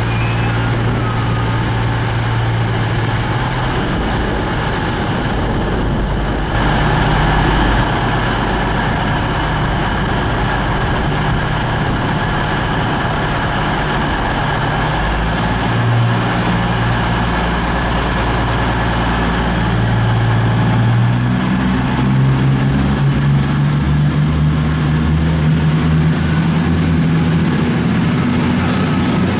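Diesel train engine running loud and steady, its pitch stepping up a little past two-thirds of the way in.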